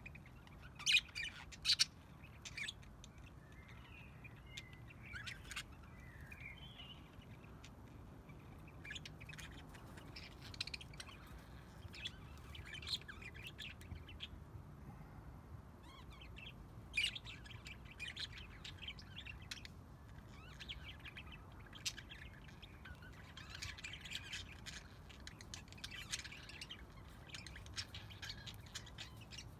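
A flock of budgerigars chirping and chattering: scattered short, sharp chirps, the loudest about a second in, with a denser run of chatter near the end.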